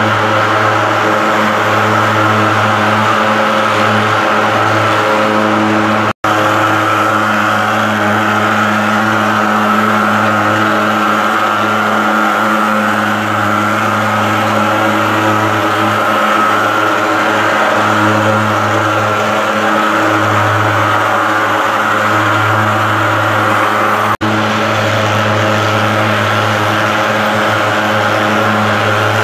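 Handheld thermal fogging machine running, its pulse-jet engine giving a loud, steady buzzing drone. The drone breaks off for an instant twice.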